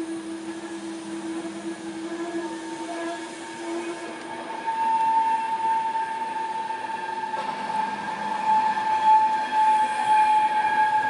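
Deutsche Bahn Intercity coaches rolling slowly past, their wheels squealing in a steady high tone that jumps higher and louder about four and a half seconds in, over the rumble of the running gear.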